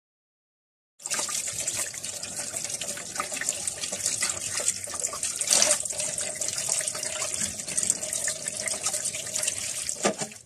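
Water running from a kitchen tap and splashing over fish pieces being rinsed by hand in a steel sink. It starts suddenly about a second in and cuts off abruptly near the end.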